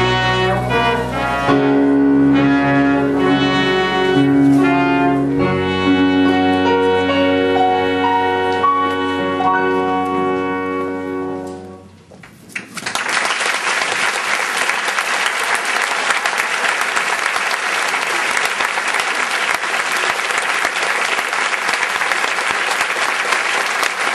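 Band with brass finishing a number on a long held chord that dies away about halfway through, followed by steady audience applause.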